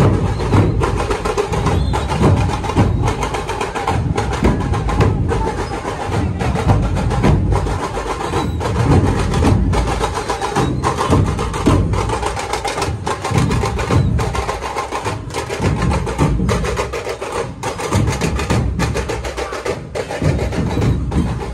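Many large dhol barrel drums beaten together by a street drum troupe, playing a loud, steady, driving rhythm.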